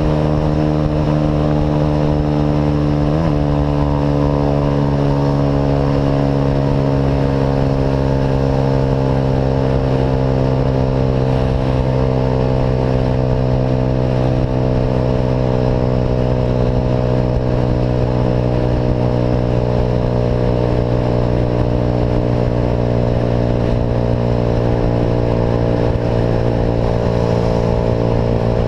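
Engine running through an Atalla aftermarket exhaust at a steady cruise, its pitch easing slowly down, with one brief pitch jump about three seconds in.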